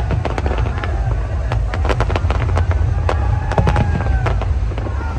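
Fireworks display: a rapid, irregular volley of sharp bangs and crackles over a continuous low rumble.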